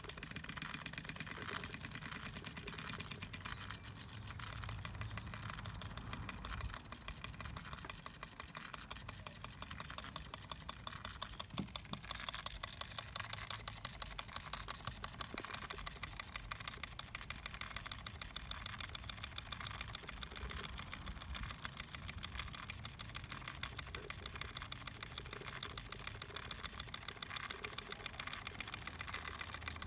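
Wilesco model steam traction engine running under live steam, giving a rapid, even mechanical clatter of quick chuffs that holds steady throughout.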